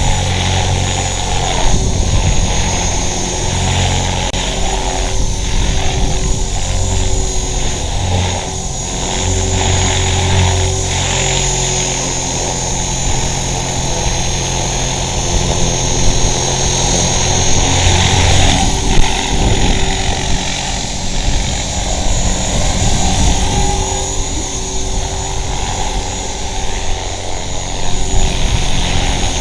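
450-size electric RC helicopter hovering close by: a steady high motor and gear whine over the rotor's whirr, with its main blades out of track. Gusty wind rumbles on the microphone, heaviest in the first half.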